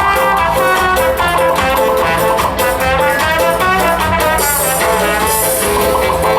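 Loud instrumental show music playing, with pitched melody notes over a steady accompaniment. A high hiss joins in briefly about four and a half seconds in.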